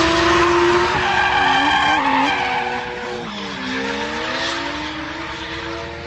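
Cars drifting on asphalt: engines held at high revs, their pitch rising and falling, over the noise of tyres skidding and squealing. Loudest in the first two seconds, easing off a little about three seconds in.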